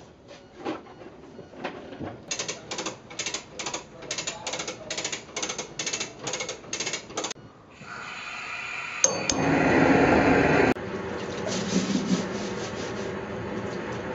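A rope rubbing against the lower ends of wooden barrel staves in even strokes, about two and a half a second, as the staves are drawn in. After a pause a gas burner under the barrel runs with a steady hiss; it comes in with a click and is loudest for about a second and a half before it settles.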